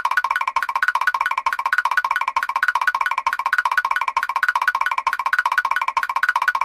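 Mr. Krabs's cartoon walking sound effect, looped: short pitched tapping notes repeating rapidly and evenly.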